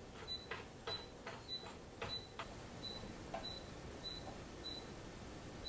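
Combination lock dial being screwed onto its spindle, with light clicks and ticks from the dial turning during the first two and a half seconds. A short high beep repeats about every half second throughout.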